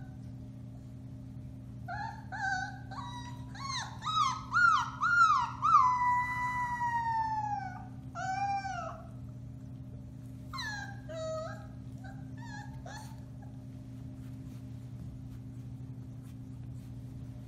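Four-week-old Alaskan Malamute puppy howling: a string of short yips that climb in pitch build into one long, falling howl about six seconds in. A few more short yips and whimpers follow, then only a steady low hum is left for the last few seconds.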